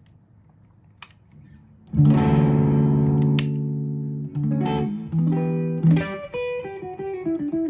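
PRS CE22 electric guitar: a chord strummed about two seconds in and left to ring, then a run of single picked notes.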